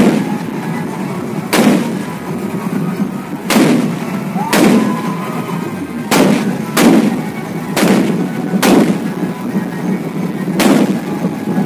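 Fireworks going off at close range: about nine sharp, loud bangs at irregular intervals, over steady background noise.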